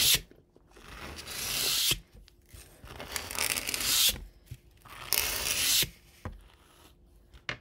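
A brush drawn through the long fibres of a pike fly, three long rasping strokes, each swelling in loudness before it stops. These are the final brush-through to set the fibres after colouring.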